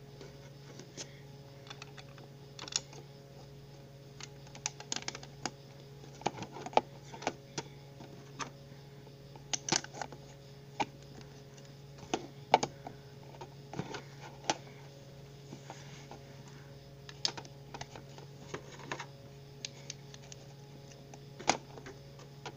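Plastic Lego bricks clicking and clattering as they are handled and pressed together on a baseplate: irregular sharp clicks scattered throughout, over a steady low hum.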